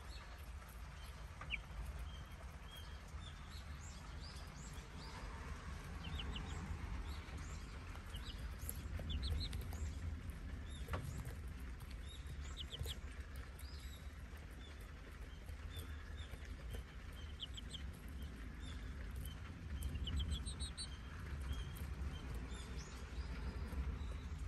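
Young chickens cheeping in short quick runs of high peeps every few seconds while feeding, over a low steady rumble.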